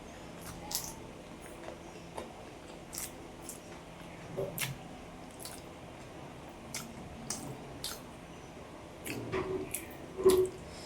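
Close-miked eating: wet chewing of a mouthful of luchi and jackfruit curry, with scattered sharp mouth clicks and smacks. There is a louder cluster of smacks near the end.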